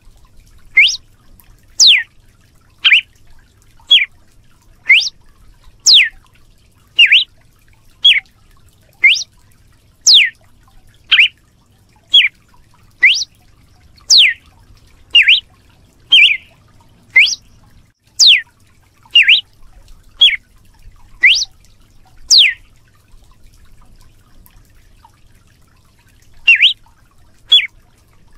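Red-cowled cardinal (galo de campina) calling: short, sharp whistled notes about one a second, alternating quick upward and downward sweeps. The notes stop for about four seconds near the end, then resume.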